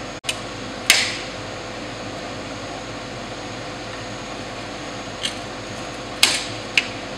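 Wheel glass cutter working sheet glass: a steady hiss, the wheel 'singing', with five sharp glassy clicks, the loudest about a second in and three close together near the end.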